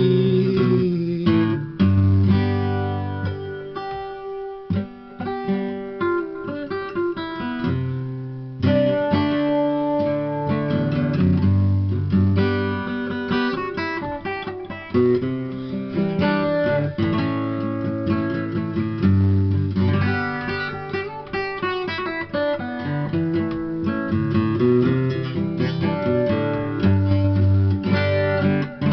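Acoustic guitar played solo as an instrumental passage: picked and strummed chords with a low bass note that comes back every few seconds.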